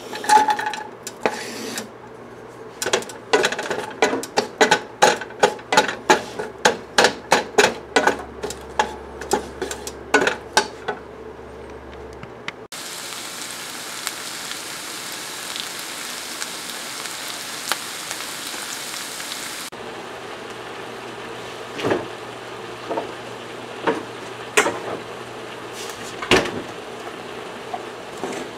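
A run of sharp, regular knocks, about two a second, for the first ten seconds or so. Then ground turkey and diced onion sizzle in a hot frying pan, the hiss loud at first and then steadier, with a few knocks of a wooden spatula against the pan as the meat is broken up.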